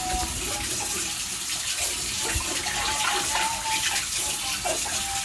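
Water running steadily from a tap into a kitchen sink.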